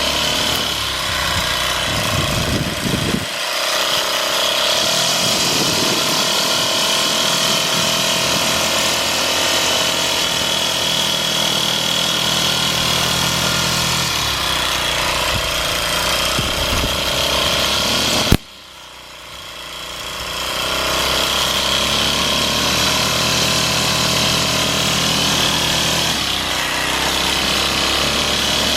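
Gas-powered string trimmer (weed whacker) running steadily with a high whine as it cuts grass. About 18 seconds in there is a sharp click and the sound drops off suddenly, then it builds back up to full speed over a couple of seconds.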